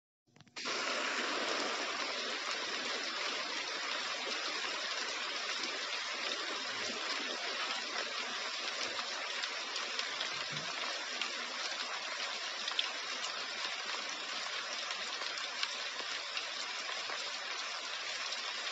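Heavy rain falling steadily, an even hiss of downpour that starts about half a second in.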